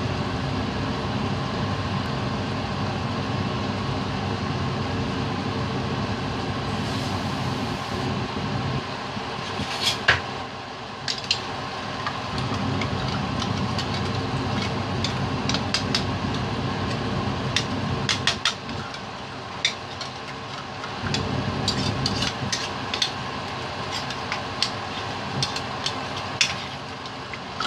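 Chicken and condensed cream of chicken soup cooking in a hot wok over a gas burner: scattered sharp pops and crackles over a steady mechanical hum, with one louder knock about ten seconds in.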